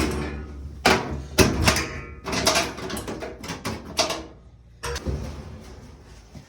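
Top-load washing machine's top panel and cabinet being pried open and handled: a series of sharp clicks and clatters as the clips release and the metal panel shifts.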